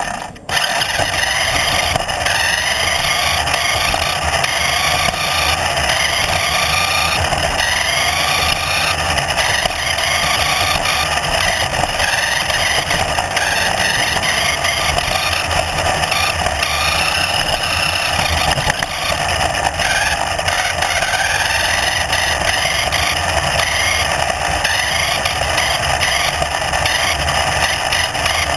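A motor running steadily, its pitch rising and falling repeatedly over a constant low hum.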